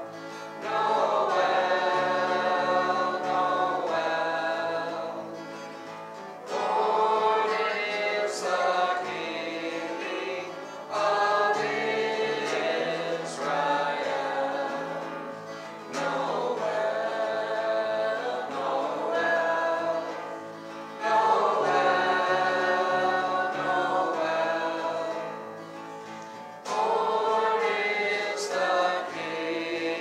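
Small band performing a worship song: several voices singing together over bass guitar and acoustic guitar. The phrases run a few seconds long, with short breaks between them.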